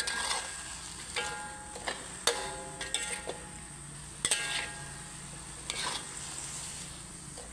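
Metal spatula scraping and clinking against a metal wok as a stir-fry of pork belly and water celery is turned over. The strokes come roughly once a second over a steady sizzle of frying.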